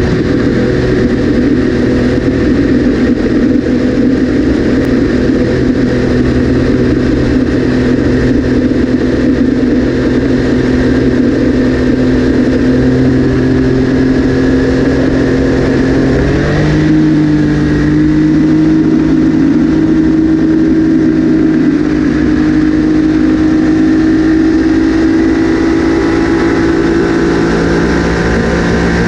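Triumph Daytona 955i's inline-three engine running hard at high speed, heard from the cockpit. The engine note is steady, steps up sharply in pitch about 16 seconds in, then keeps climbing slowly.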